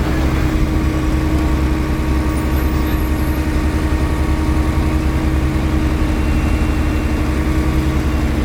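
Heavy diesel machinery engines running steadily: a constant low drone with a steady whine on top.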